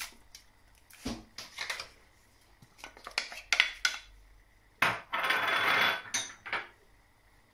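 Wooden spoon clacking and scraping against a stainless steel pot while stirring diced vegetables into chicken broth: scattered knocks, then about a second of steady scraping and swishing about five seconds in.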